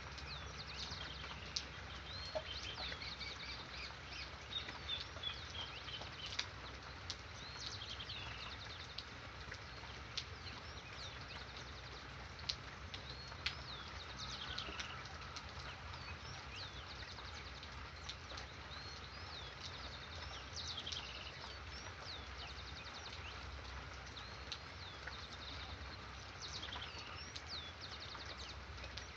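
Birds singing and calling in short, high, repeated phrases over a steady hiss of rain.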